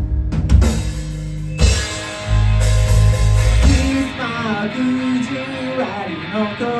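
Rock band playing an instrumental passage: drums and bass with crashing cymbals, then about four seconds in the low end drops away and a bending melody line carries on over sustained guitar chords.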